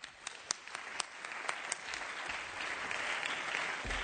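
Audience applauding: a few separate claps at first, swelling within about two seconds into steady applause.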